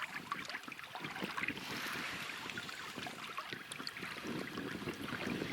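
Quiet ambience on a small boat: a faint wash of water lapping, with many small scattered clicks and taps.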